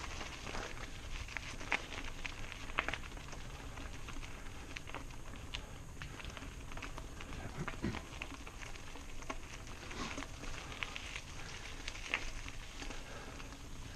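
Mountain bike rolling fast over a dirt and gravel trail: tyres crunching on loose stones, with irregular clicks and rattles from the bike, over a steady low wind rumble.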